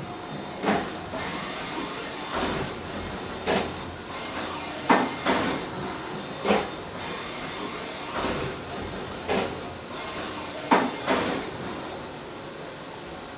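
FANUC Robodrill α-D14LiB5 vertical machining centre working through its motions: a steady hiss with a faint high whine, broken by irregular mechanical clunks and knocks every second or so, the sharpest about 5 and 11 seconds in.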